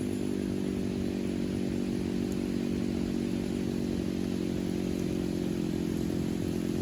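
Vintage two-stroke chainsaw idling steadily at one even pitch.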